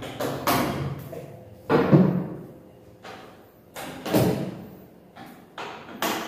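Rack flight cases (hardcases with aluminium edging and latches) clunking and thudding as they are handled, shifted on a table and their latches worked to open them. Irregular separate knocks, the loudest about two seconds in.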